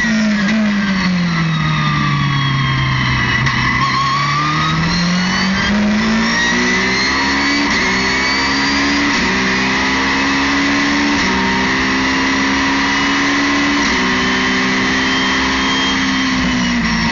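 Ferrari 458 GT2's V8 race engine heard from inside the cockpit. The revs fall as the car slows for a corner, then it accelerates hard, climbing through the gears with about four quick upshifts, each a short dip in pitch before it rises again, and the revs drop near the end as the throttle comes off.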